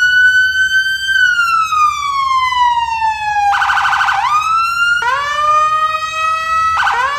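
Electronic police car siren wailing: a long tone that falls slowly, breaks into a fast warble about three and a half seconds in, then climbs back up, with short quick chirps near the end.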